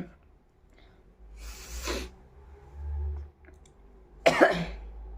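A woman coughing: a breathy, rasping cough about one and a half seconds in, a low thud, then a louder, harsher cough with voice about four seconds in.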